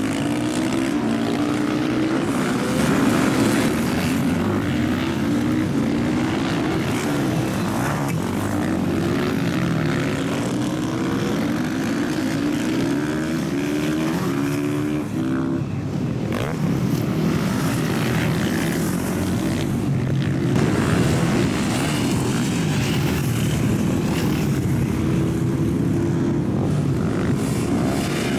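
Supermoto motorcycle engines racing, revving up again and again through the gears and dropping back between shifts as the bikes pass.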